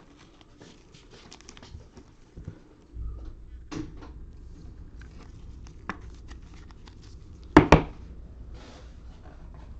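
Trading cards being handled at a table: soft sliding, flicking and rustling clicks, with two sharp taps in quick succession about three-quarters of the way through. A low steady rumble comes in about three seconds in.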